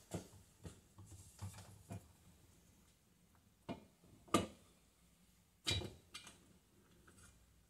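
Kawasaki KZ650 carburetors and their metal parts clicking and knocking as they are handled and set down on a workbench while being separated from the mounting plate. There are scattered light clicks, with the sharpest knocks a little after four seconds in and near six seconds.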